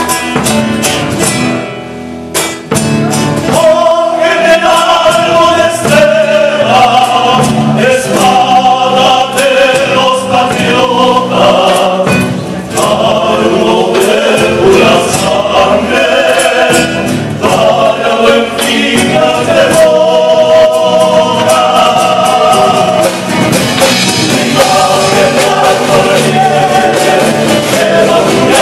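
A male vocal group singing a folk song in harmony over strummed and plucked acoustic guitars, performed live. The sound dips briefly about two seconds in, then the full ensemble of voices and guitars carries on.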